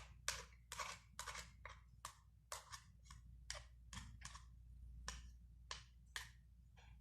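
Faint, irregular clicks and scrapes of a utensil against a dish, about two a second.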